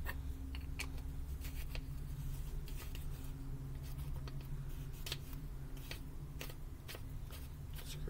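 Scattered light clicks and taps of AAA batteries and plastic parts being handled as batteries are fitted into a small plastic LED flashlight, over a steady low hum.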